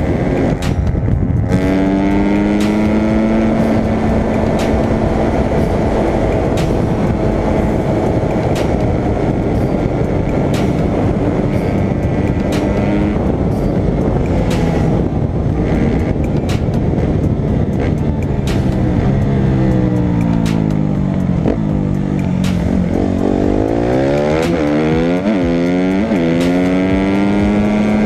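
Dirt bike engine pulling at a steady speed along the road, heard from the rider's helmet camera over wind rush. In the last third the revs drop and climb several times in quick succession as the rider rolls off and gets back on the throttle through the gears.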